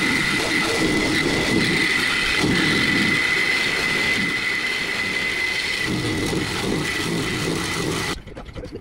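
Cordless reciprocating saw cutting through a boat's metal compression post. The motor runs steadily with a high whine and stops suddenly near the end.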